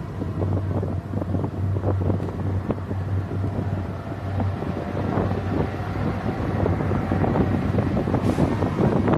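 Wind buffeting the microphone over a steady low engine-like hum.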